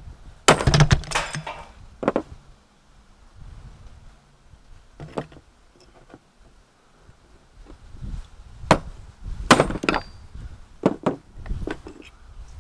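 Hard objects knocking and clattering as pieces of scrap are handled and rummaged through: a quick run of knocks about half a second in, then single knocks every second or few.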